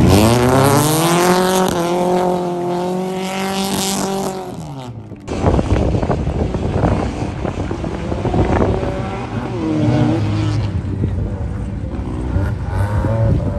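Mercedes 190 rally car's engine revving hard on loose gravel, its pitch climbing and then holding at high revs before easing off. After a sudden cut about five seconds in, another rally car's engine runs at varying revs over the crunch and spray of gravel.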